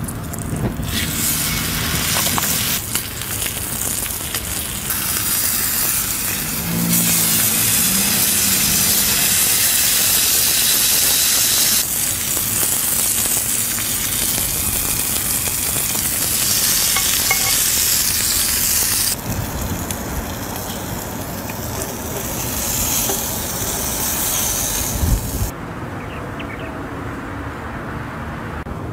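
A steak coated in herb butter sizzling as it fries in a hot pan. The sizzle starts about a second in, changes in loudness abruptly several times, and drops away near the end.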